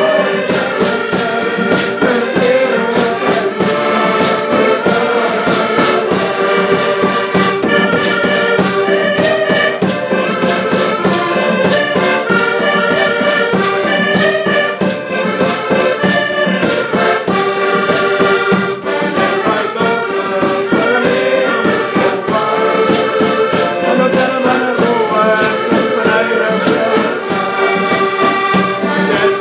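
Portuguese folk ensemble playing a lively tune: several button accordions sound chords and melody over a steadily beaten bass drum and the rasping strokes of a notched wooden scraper (reco-reco).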